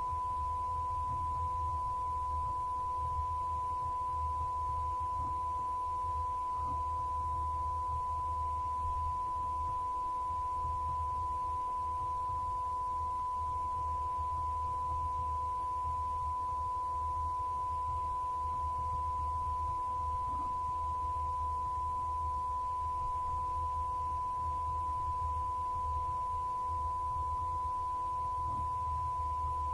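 A steady, unchanging pure tone like a test tone, with a fainter lower tone and a low hum beneath it. It stands in for the missing audio of a copyright-blocked video.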